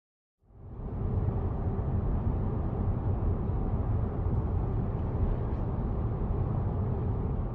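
Synthesized low rumbling drone, a fictional sound made for a newly discovered moon: a dense, noisy rumble strongest in the deep bass, with a faint steady hum above it. It fades in about half a second in and then holds steady.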